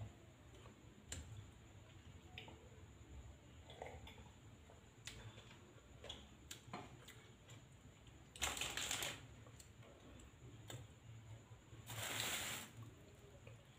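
A person eating quietly at a table: scattered faint clicks of a spoon on a ceramic plate, with two brief rustles, one about eight and a half seconds in and one near the end.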